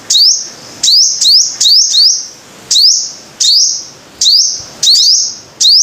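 A sunbird, the kind called the five-coloured sunbird, calling over and over. Each call is a short, high chirp that sweeps upward, about two a second, some coming in quick pairs.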